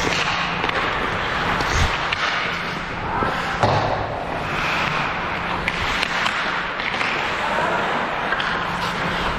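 Game noise: scattered sharp knocks and thuds over a steady low hum and distant voices.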